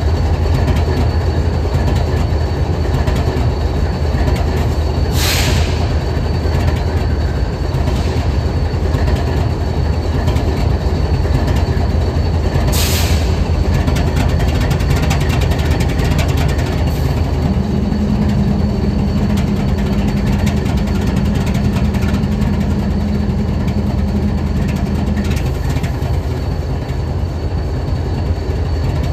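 BNSF 7876, a diesel-electric locomotive, idling with a steady low rumble. Two short hisses come about five and thirteen seconds in, and a steady hum joins about halfway through and stops a few seconds before the end.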